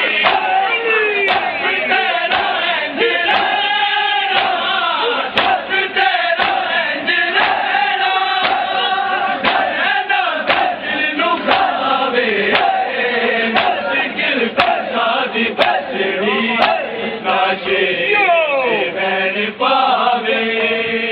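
Large crowd of men chanting a noha together in a matam, their hands slapping their bare chests in unison at about one stroke a second.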